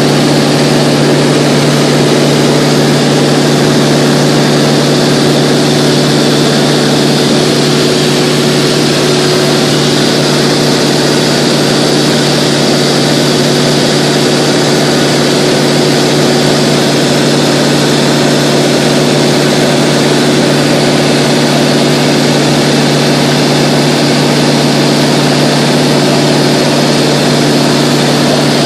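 Steady drone of a Mooney 201's four-cylinder Lycoming engine and propeller at about 55% power in level cruise, heard inside the cabin with a steady rush of air over it.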